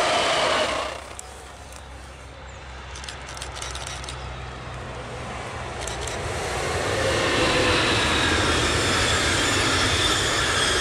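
Passenger train hauled by an electric locomotive running past at speed, its sound falling away within the first second. A quieter spell follows with a low steady hum. Then a second locomotive-hauled passenger train approaches and runs past, getting loud from about six seconds in.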